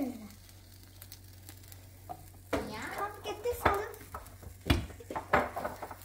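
Pizza toppings being placed by hand in a cast iron grill pan over a faint sizzle from the pan, with soft clicks and taps and a few heavier knocks about two thirds of the way in.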